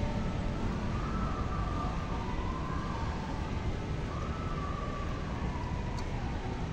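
Outdoor street ambience: a steady low rumble, with a faint wavering tone that rises and falls twice.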